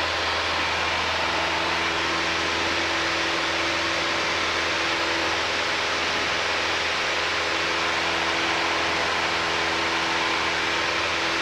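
Steady cockpit noise of a Piper Cherokee's single-engine four-cylinder Lycoming: an even hiss with a low engine drone underneath, holding at one level with no rev change.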